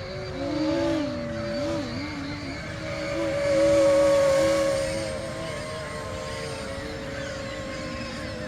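Electric motors of a radio-controlled aircraft whining in flight, two steady tones wavering up and down in pitch and growing loudest about four seconds in as it passes close.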